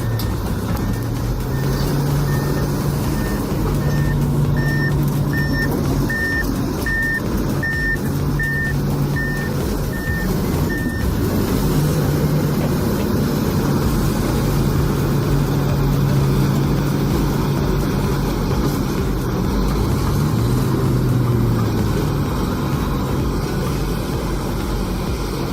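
Heavy diesel machine's engine running, its pitch rising and falling as it works. A reversing alarm beeps about every half second, stopping about eleven seconds in.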